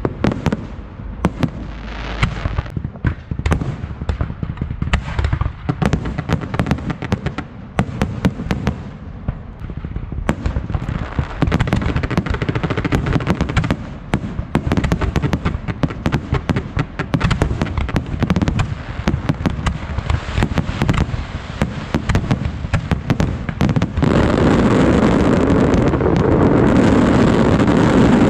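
Fireworks display going off: a rapid, continuous stream of bangs and crackles. About 24 seconds in it builds to a louder, unbroken crackling that stops suddenly near the end.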